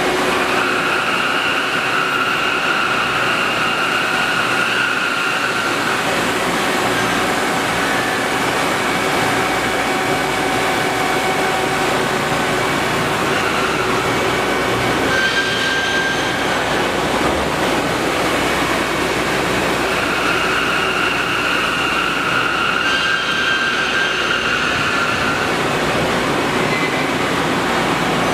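Tsugami BO12BII CNC Swiss-type lathe running: a steady, loud mechanical noise with a high whine that holds for several seconds near the start and comes back about twenty seconds in.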